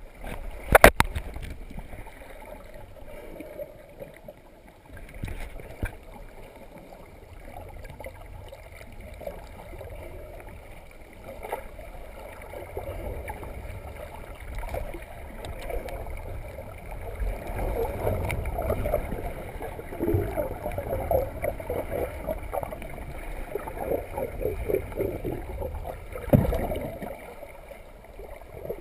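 Muffled water sloshing and gurgling around an underwater GoPro's housing as it moves through the sea, with a sharp knock about a second in; the gurgling grows louder in the second half.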